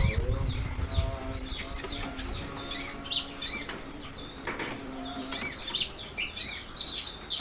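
A konin songbird singing a rapid, busy series of high chirps, slurred whistles and short trills in full, lively song. A low steady hum sits under the first five seconds.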